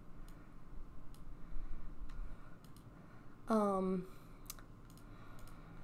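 Scattered faint clicks of a computer mouse as points on an image-editing curve are dragged. A short voiced hum, falling in pitch, comes about three and a half seconds in.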